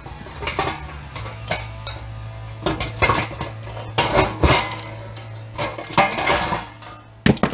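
Repeated metallic clinking and scraping as pliers pry round metal plates off the knob openings of a barbecue grill's magnetic stainless steel control panel, the panel ringing and clanking as it is knocked about.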